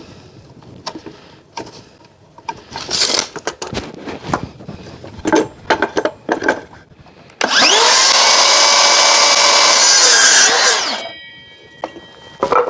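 Timber being handled with scattered knocks and clicks, then about seven seconds in an electric saw spins up and cuts through a length of framing timber for about three seconds. It winds down as the trigger is released.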